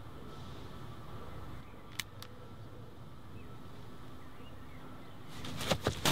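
Quiet outdoor background; about two seconds in, two sharp clicks from a semi-automatic pistol's mechanism as it is readied. Near the end, a rush of clothing rustle and scuffling impacts rises quickly as a fight breaks out.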